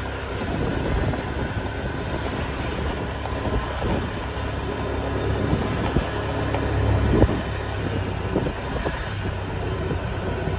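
A motor vehicle engine running steadily along a street, with wind buffeting the microphone from riding, and a brief knock about two-thirds of the way through.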